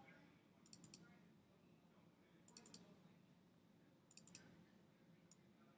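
Faint computer mouse button clicks in small quick groups, like double-clicks, three groups about a second and a half apart, then one single click near the end; otherwise near silence.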